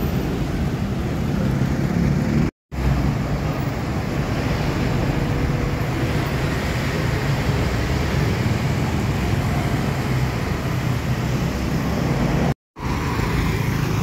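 Road traffic on a busy street: cars and motorcycles going by as a steady rumble. The sound cuts out completely for a split second twice, about two and a half seconds in and near the end.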